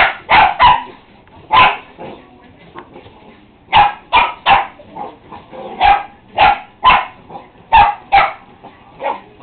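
Dog barking at a remote-control car it is chasing: about a dozen sharp barks, mostly in quick runs of two or three.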